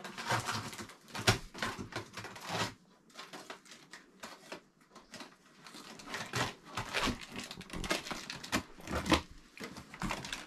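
Large cardboard box being pushed, slid and tipped on the floor: irregular scraping, knocks and rustling of cardboard.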